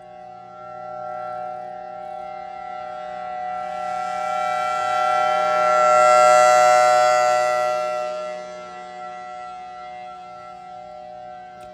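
Federal Signal Thunderbolt 1003A2 civil defense siren sounding a steady tone as it rotates. It swells to its loudest about six seconds in as the horn sweeps past, then fades as it turns away.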